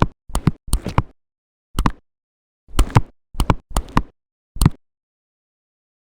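Slime being pressed and poked by hand: about eight short, separate knocking, squishing sounds, irregularly spaced.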